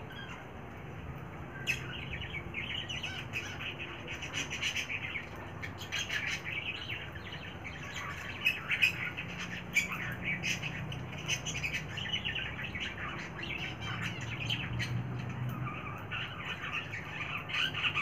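Cockatiel chattering in a run of short chirps and squawks, starting about two seconds in and going on to the end.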